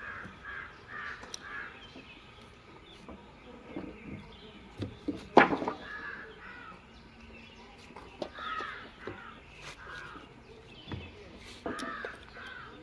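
Crows cawing in several short runs of repeated calls. A single sharp knock sounds about five seconds in.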